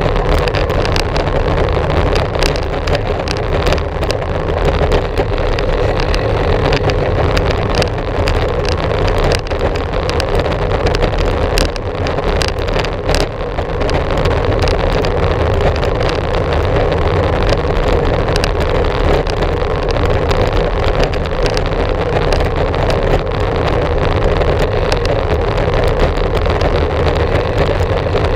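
Steady rushing noise of a bicycle being ridden: wind on the camera's microphone and tyres rolling on the trail, with scattered small clicks and rattles.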